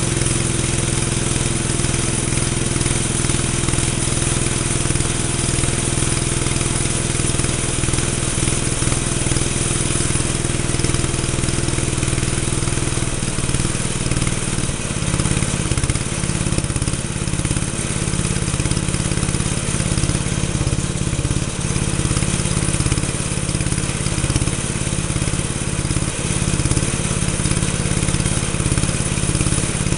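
Freshly rebuilt 8 hp Briggs & Stratton single-cylinder engine running steadily. About halfway through its note changes and becomes more uneven.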